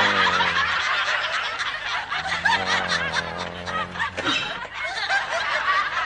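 Studio audience laughing, many voices at once, with a steady low musical tone underneath during the first second and again in the middle.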